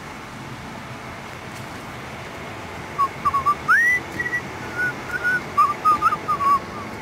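Steady rush of flowing stream water. From about three seconds in, a person whistles a tune over it in short notes, with one quick upward slide near four seconds.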